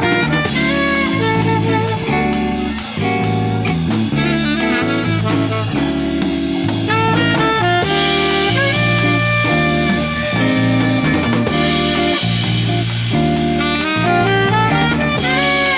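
Live jazz band playing: a saxophone lead over a stepping bass line and drum kit.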